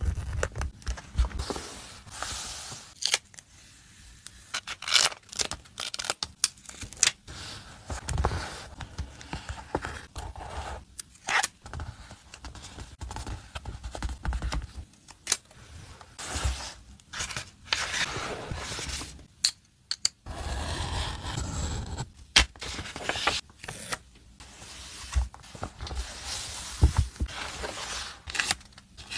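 Paper and sticker handling on a dot-grid notebook: pages flipped, stickers peeled from their backing and laid down with metal tweezers, in irregular rustles, scrapes and sharp taps.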